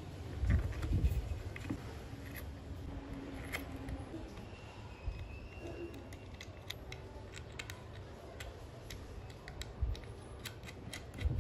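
Small clicks and taps of metal bolts, a nut and a coil spring being handled and fitted against wooden parts. A few low thumps come about a second in, and the clicks come thicker near the end.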